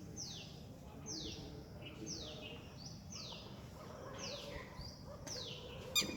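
Red-wattled lapwing calling: a series of sharp, falling notes repeated about once a second. A single sharp click comes near the end.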